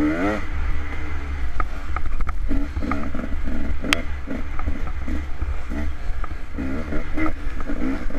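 Dirt bike engine revving up and down over and over as the throttle is opened and closed, with a constant low rumble underneath and scattered knocks and rattles from the bike, one sharp one about halfway through.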